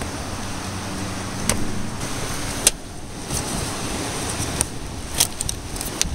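Several sharp plastic clicks of an electrical connector and hose fitting being worked loose on a car's air-intake duct, over steady background noise with a low hum that stops about two and a half seconds in.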